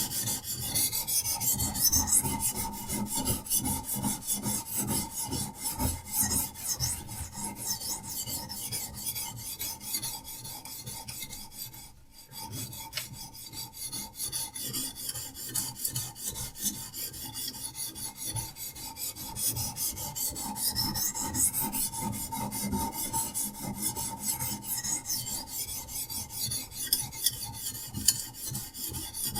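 Diamond sharpening stone on a Hapstone RS guided sharpener, rasping back and forth along a survival knife's edge in quick, continuous strokes, with a brief pause about twelve seconds in.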